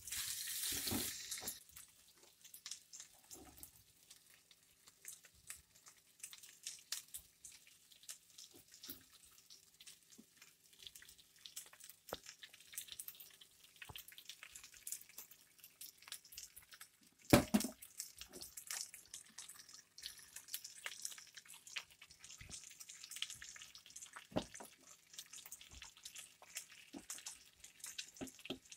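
Fish frying in oil in a cast-iron skillet: a light crackling sizzle with many small pops, rising as ingredients and a sauce go into the pan. One sharp knock about seventeen seconds in, and a faint steady hum underneath.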